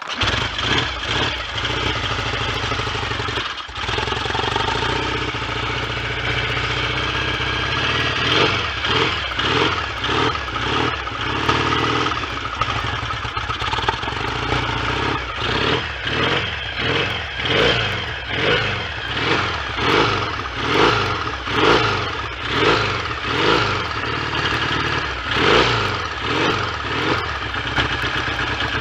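1970 Triumph T100C's 500 cc parallel-twin engine running from a stone-cold start, dipping briefly a few seconds in, then blipped on the throttle in regular surges about once a second.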